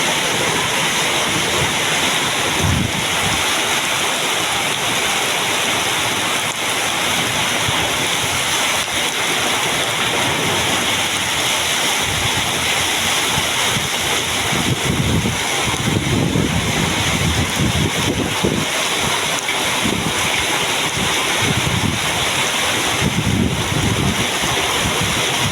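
Heavy rain falling steadily in a strong wind, with gusts buffeting the microphone as low rumbles several times past the middle and again near the end.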